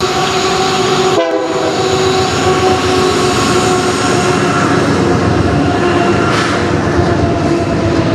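Canadian Pacific freight locomotives passing close beneath, the horn sounding a steady chord with a short break about a second in, over the running noise of the train and its wheels on the rails.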